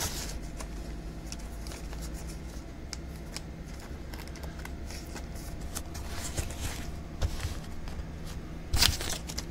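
Trading cards being handled and shuffled by hand: soft rustles and small clicks, with two louder swishes in the second half, over a steady low hum.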